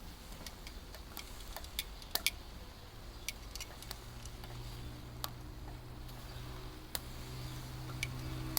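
Charcoal grill crackling: irregular sharp ticks and pops from the hot coals and charring vegetables. A low steady hum comes in about three seconds in.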